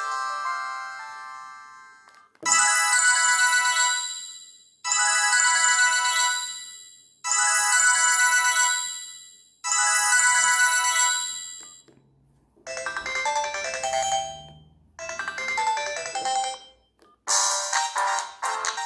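Sony Ericsson J220i mobile phone playing its built-in ringtones through its small loudspeaker, one after another. A chiming phrase sounds four times at even spacing, each ringing out and fading, then a different melody plays twice, and a busier, faster tune starts near the end.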